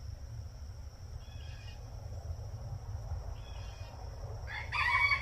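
A rooster begins to crow near the end, the loudest sound here, over a steady high insect buzz. Two short bird calls come earlier.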